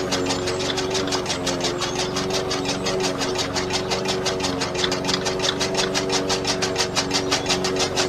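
Small electric motor of a homemade miniature chaff cutter running steadily, turning its flywheel and cutter through a rubber-band belt: an even hum with fast, regular ticking, about seven ticks a second.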